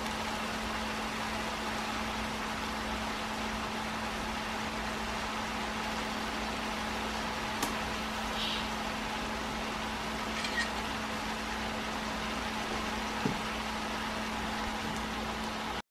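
A steady hum with one low tone and an even hiss over it, like a small motor running, with a few faint clicks.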